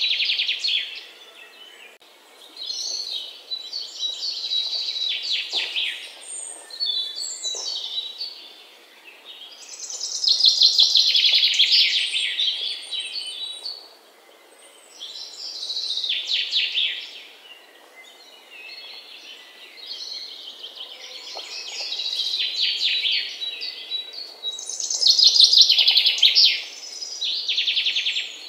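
Birds singing in a run of high, fast-trilled phrases of a second or two each, with short quieter gaps between them.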